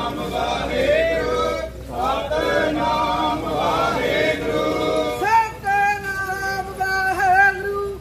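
A group of men and women singing a Sikh devotional chant together, moving from a flowing melody to long held notes in the second half.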